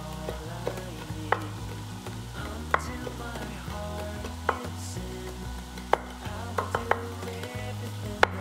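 Food frying in a pan while being stirred, with a steady sizzle and sharp taps of the utensil against the pan about eight times.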